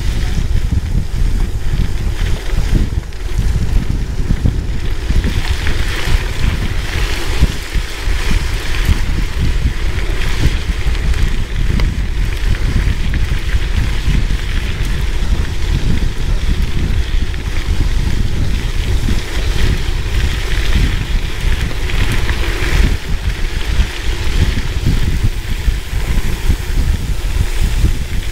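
Heavy wind buffeting on a GoPro's microphone at riding speed, with the steady hiss and rumble of gravel-bike tyres rolling over a dirt-and-gravel road. The hiss swells a few seconds in and again about two-thirds of the way through.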